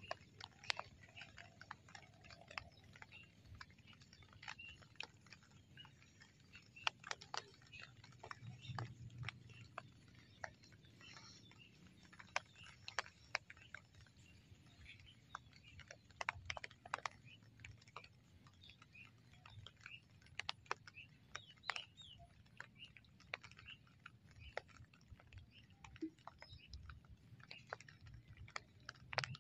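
Faint outdoor ambience: scattered, irregular sharp clicks and ticks over a low steady rumble, with a few faint short chirps.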